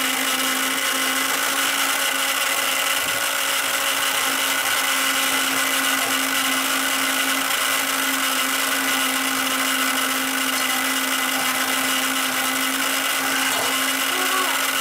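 Small electric motor of a toy roto spin-art painting machine running at a steady speed, spinning the paint tray: an even whirring hum that holds the same pitch throughout.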